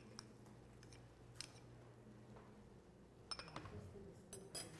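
Near silence broken by a few faint clicks and taps of a spoon against a bowl as crumbled tofu is scraped into the pot, with a small cluster of taps near the end as the bowl is set down.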